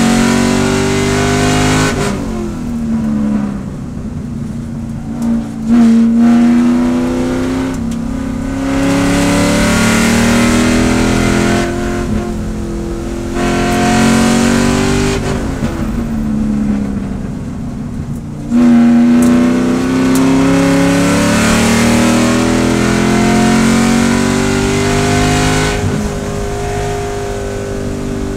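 C5 Corvette race car's V8 engine, heard from inside the cockpit, accelerating hard with the revs climbing. The note drops and quietens a few times as the driver lifts or brakes, then comes back loudly on throttle.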